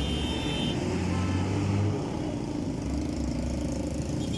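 Motor vehicle engine running with a low hum that drops lower about two seconds in, over steady background noise.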